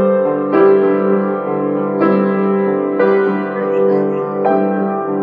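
Grand piano played by hand: slow chords struck every second or so, each held and ringing on into the next.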